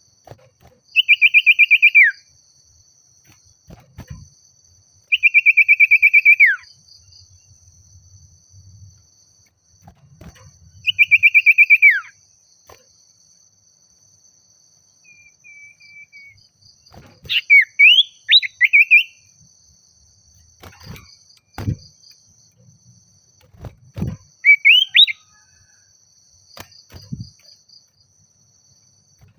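Common iora singing: three long trilled whistles about a second each, each dropping in pitch at its end, then shorter, quicker varied notes in the second half. A steady faint high insect trill runs underneath, with a few sharp clicks.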